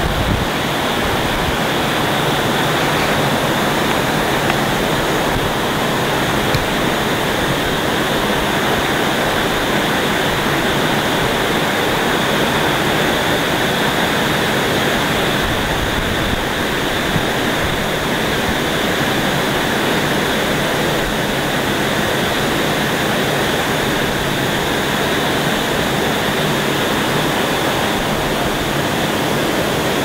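Even, unbroken rushing noise with no distinct knocks, tones or voices.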